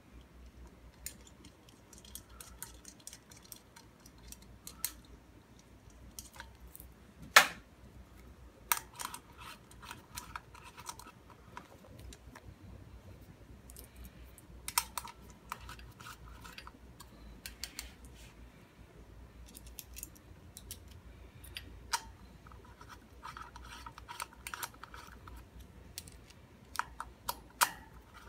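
Disc-rotor bolts being fitted and driven in with a hand screwdriver on a Rohloff hub: scattered small metal clicks and scrapes, with a sharper click about seven seconds in and several runs of quick ticking.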